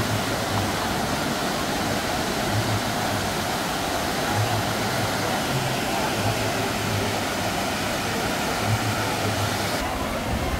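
Steady rush of falling water with a low murmur of crowd voices under it. The upper hiss drops away suddenly near the end.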